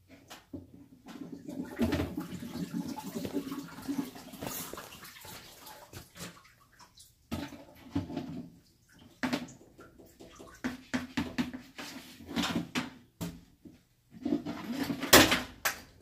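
Water splashing and sloshing in irregular bursts, mixed with knocks and clatter of handling.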